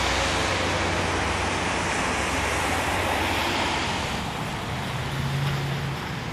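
Traffic on a wet, slushy street: tyres hissing on the wet pavement, a steady noise that dies down about four seconds in, followed by a low hum.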